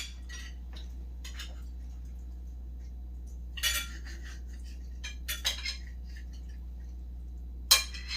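Cutlery clinking against dinner plates during a meal: a few short, separate clinks, with a steady low hum underneath.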